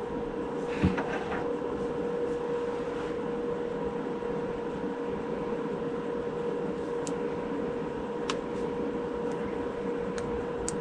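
Steady background hum with one constant tone under a faint even noise, like a running air conditioner or fan. A brief soft sound comes about a second in, and a few faint clicks follow in the second half.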